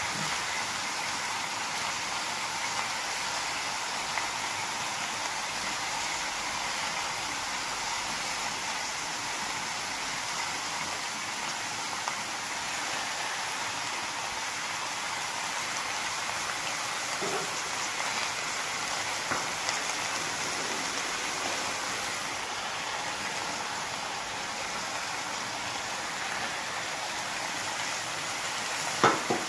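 Steady sizzling hiss from meat frying under layered vegetables in an aluminium kazan. A few faint knocks as vegetable pieces are dropped in, and a sharper knock near the end.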